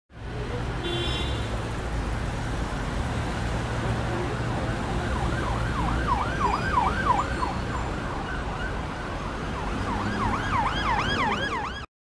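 Ambulance siren on a fast yelp, rising and falling three or four times a second, over steady street traffic rumble. It starts about five seconds in, fades out for a moment, then returns louder near the end before cutting off abruptly.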